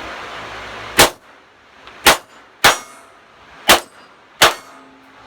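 Five pistol shots from a Glock 17 9mm firing 147-grain American Eagle rounds, unevenly spaced over about three and a half seconds, the first about a second in.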